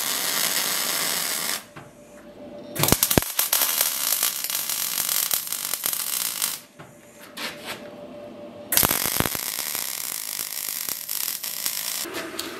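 MIG welder arc crackling and sizzling in three runs of a few seconds each, with short pauses between them, as a stack of steel bars for a sword billet is welded together. Near the end a lower, steadier noise begins.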